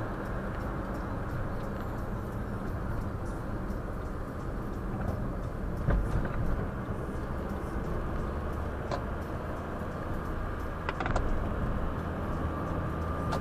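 Steady road and engine noise of a moving car, picked up by a windshield dashcam's microphone inside the cabin. A sharp knock comes about six seconds in, and a short clatter of clicks follows around eleven seconds.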